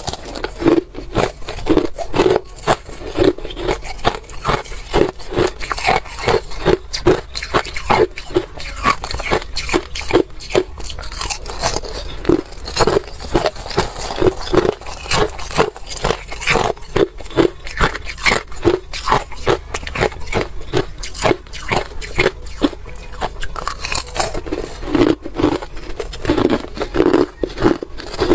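Crushed ice being bitten and chewed close to a clip-on microphone: a long, steady run of crisp, loud crunches, two or three a second.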